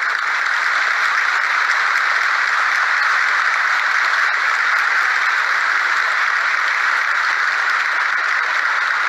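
Crowd in a sports hall applauding steadily.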